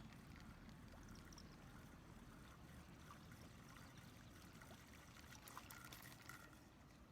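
Near silence: faint, steady low outdoor noise with a few light ticks.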